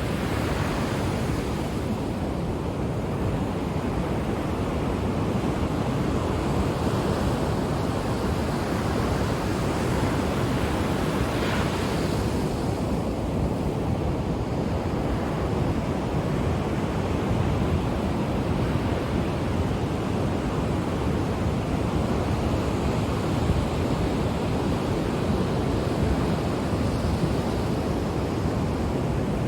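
Ocean waves breaking and washing on the shore in a continuous low rumble of surf, swelling and easing slowly, with wind on the microphone.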